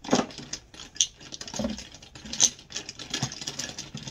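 Small plastic cosmetic items, nail pens and polish bottles, clicking and rattling against each other as they are picked out of a cardboard box and handled. It comes as a string of irregular light knocks, a few of them sharper.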